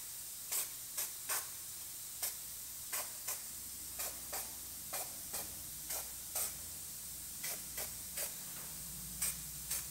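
Aerosol can of etching primer sprayed onto bare-metal welds in many short, irregular puffs, roughly two a second, over a faint steady low hum.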